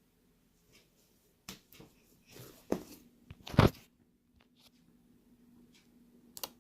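Hands squeezing and poking fluffy slime: a scatter of soft clicks and crackly squelches, two louder squishes a little under three and four seconds in.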